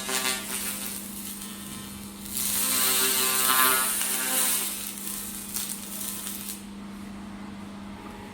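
Handheld pulsed fiber laser cleaner ablating rust from metal: a dense, rapid crackling hiss, louder for a couple of seconds in the middle, that stops about six and a half seconds in. A steady machine hum runs underneath.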